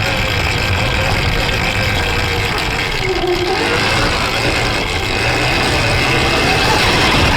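Electric dirt bike's TORP TM50 Pro motor and drivetrain whining under throttle, the pitch dropping about three seconds in and climbing again, over a steady low rumble of the ride.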